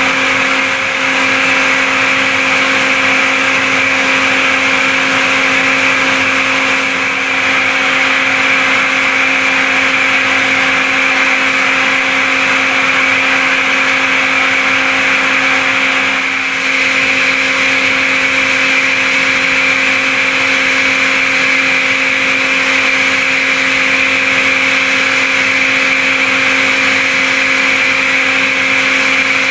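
Five-axis CNC milling machine's spindle running at a constant speed while a small end mill takes a Z-level finishing pass in a metal workpiece: a steady whine over a hiss, with short dips in loudness about a second, seven seconds and sixteen seconds in. The spiral toolpath keeps the cutter in the part without lifting off, so the cut goes on unbroken.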